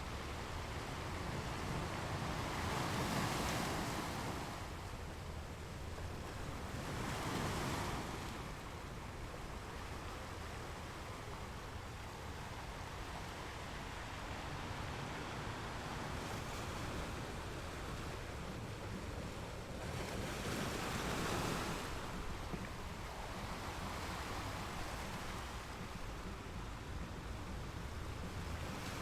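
Ocean waves breaking on the shore, with a steady wash of surf and a low rumble between them. Three waves swell and break, about three seconds in, about seven seconds in and about twenty-one seconds in.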